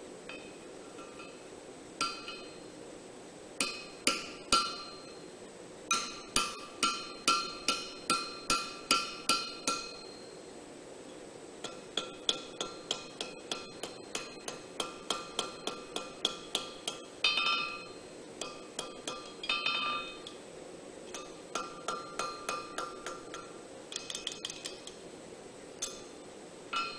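Blacksmith's hand hammer striking hot steel on an anvil: it drives a drift through a punched hole and then refines the steel around it while the drift stays in place. Each blow rings, and the blows come in runs of about two or three a second, separated by short pauses.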